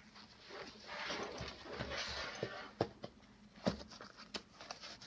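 Backpack fabric rustling as the bag is handled, with several sharp separate clicks and taps as its top flap closures are worked.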